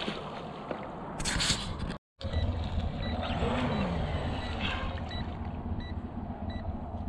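RC speedboat running across the water with a brief hiss of spray, cut off abruptly about two seconds in. Then a steady low rumble with faint short high beeps repeating about every two-thirds of a second.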